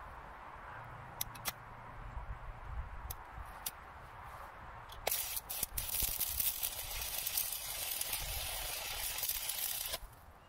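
Stick-welding (SMAW) arc on steel: a few light clicks, then about five seconds in the arc strikes and crackles and hisses steadily for about five seconds, cutting off suddenly near the end.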